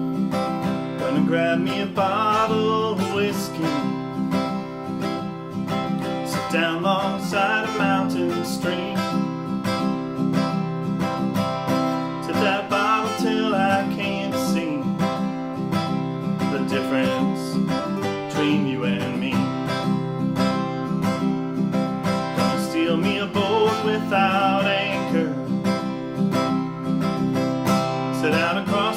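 Strummed acoustic guitar playing a country song's instrumental intro, with a lead melody line coming in short phrases about every five seconds.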